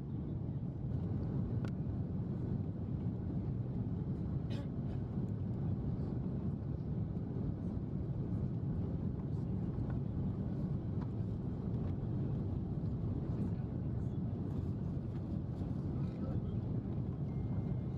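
Steady cabin noise of an Airbus A330-300 airliner on final approach: an even, low rumble of engines and airflow heard from a seat behind the wing.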